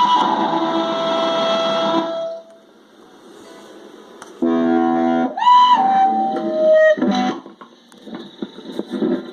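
Electric guitar played through an effects pedal: a held chord cuts off abruptly about two seconds in, followed by a quiet gap with faint ticks, then a chord, a note sliding up in pitch and a few short notes.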